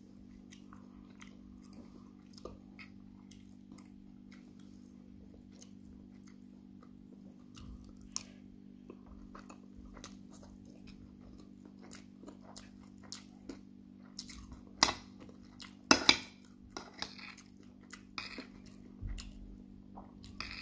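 Close-up chewing and mouth smacking on a mouthful of jollof rice, with a metal fork or spoon clicking against the plate; a few sharper clinks come about fifteen seconds in. A steady low hum runs underneath.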